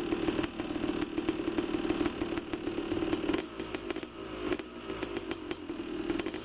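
Two-stroke dirt bike engine running with a steady note, dropping a little in level about three and a half seconds in.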